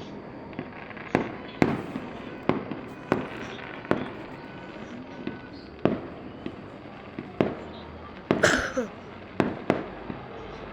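Fireworks going off: about ten irregularly spaced sharp bangs, each trailing off in an echo. A louder cluster of bursts comes about eight and a half seconds in.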